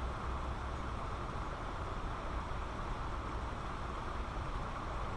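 Steady rushing of flowing creek water, an even hiss strongest in the middle range, with a low rumble beneath.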